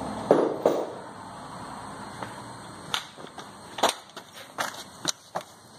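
Scattered sharp clicks and knocks of hand tools being handled, irregular, with two louder knocks under a second in.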